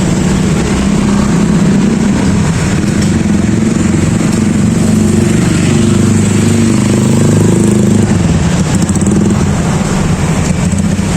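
Street traffic with a motorcycle engine running close by, its pitch shifting up and down. The deepest rumble drops away about eight seconds in.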